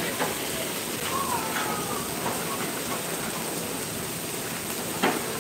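Kitchen knife chopping pork on a wooden cutting board: a few light knocks and one sharper one near the end, over a steady hiss with faint distant voices.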